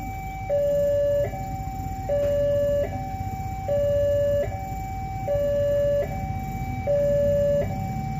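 Indonesian railway level-crossing warning alarm sounding: an electronic two-tone signal alternating high and low notes, each about three-quarters of a second long, the lower note louder. It repeats steadily over a low rumble and means the crossing is closed for an approaching train.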